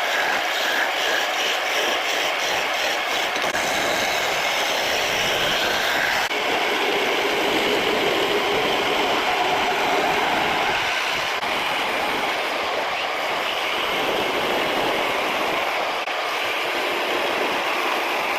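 Wood lathe running with a turning tool cutting the spinning wooden axe handle: a steady, rough scraping hiss that changes slightly about six seconds in.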